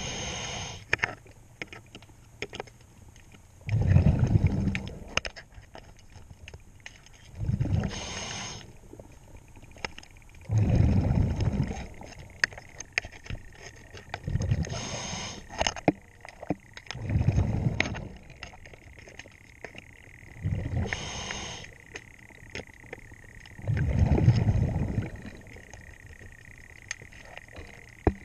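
A diver breathing through a regulator underwater: a short hiss on each inhale and a longer, lower gush of exhaled bubbles every few seconds. Small sharp clicks of a hand tool on the zinc anode's bolt come between the breaths.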